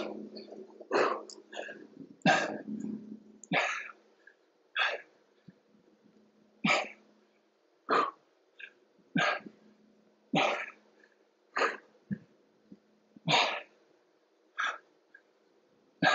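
A person breathing out hard and sharply in a steady rhythm, about one exhalation every second and a quarter, one breath per repetition of a dumbbell exercise.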